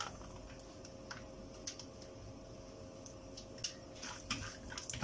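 Cashews and peanuts frying in sesame oil in a small pan: faint sizzling with scattered pops and ticks, growing busier near the end as a wooden spatula stirs them. A faint steady hum runs underneath.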